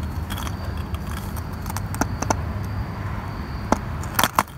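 Scattered light clicks and knocks of a removed car starter motor being handled and turned over in the hand, with a short cluster of them about four seconds in, over a steady low rumble.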